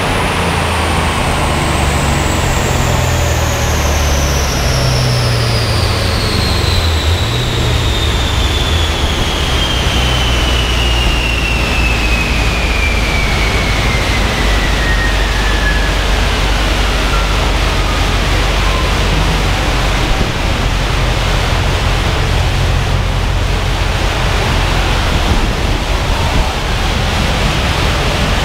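HSV Clubsport's V8 running low on a chassis dyno under a loud, steady rush of air from the cooling fans, while a high whine from the spinning rollers and wheels slowly falls in pitch as they coast down, fading out about two-thirds of the way through.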